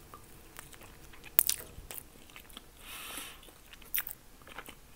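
Close-up eating sounds of a person chewing syrniki (soft cottage-cheese pancakes): wet mouth smacks and clicks, the sharpest about a second and a half in and another near the end, with a short breathy hiss about three seconds in.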